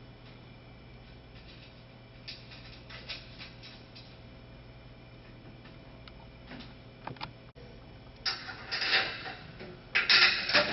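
Light clicks and metallic clatter of frame parts and tools being handled during assembly, growing into louder rattling bursts near the end, over a low steady hum.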